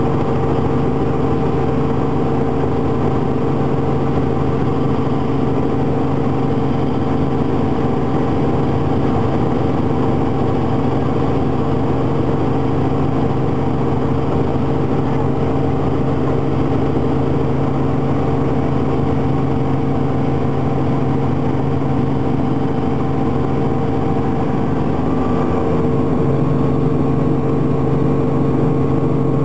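Light helicopter in cruising flight, heard from inside the cabin: a loud, steady drone of engine and rotors with several constant tones, the pitch of the tones shifting slightly near the end.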